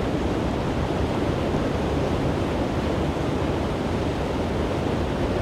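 Floodwater churning and splashing steadily around a tractor's wheels as it ploughs through a flooded road, with wind buffeting the microphone.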